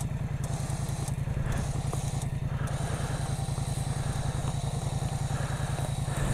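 An engine idling steadily, its low, even pulse unbroken.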